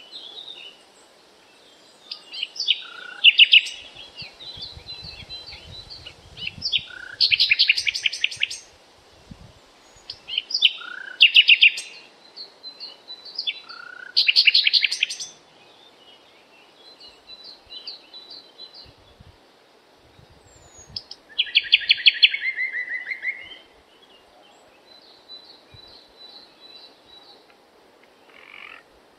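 Birds singing: loud, rapid trilled phrases every few seconds, with fainter repeated chirps between them.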